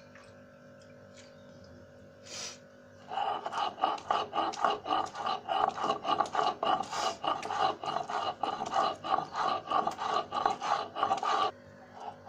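Shil-pata grinding stone in use: the hand-held upper stone is rubbed back and forth over the stone slab, grinding boiled pumpkin peel and chillies into a wet paste. The strokes come about three a second, starting about three seconds in and stopping just before the end.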